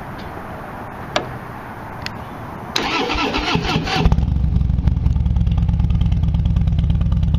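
A couple of clicks, then the 2016 Harley-Davidson Dyna Wide Glide's V-twin is cranked by its starter for about a second and catches about four seconds in, settling into a loud, steady idle through the stock exhaust pipes with the baffles removed (about 102 decibels at idle).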